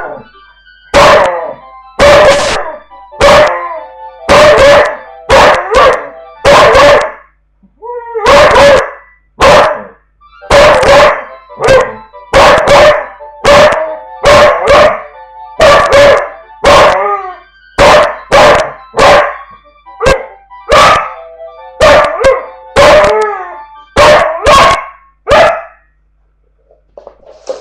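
Dog howling and barking at a house phone's tone, in loud, pitched yowls about once a second, some bending in pitch, over the phone's steady electronic tone; the dog falls silent near the end.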